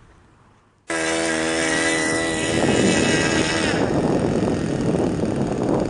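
RC model airplane engine running in flight, starting abruptly about a second in as a steady droning tone that turns rougher and noisier about halfway through.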